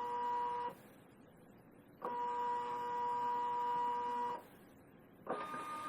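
Zebra 140Xi III Plus label printer feeding media during its sensor calibration, its feed motor giving a steady whine in stop-start runs. It stops under a second in, runs again for about two and a half seconds, then makes a short, higher, rattlier run near the end.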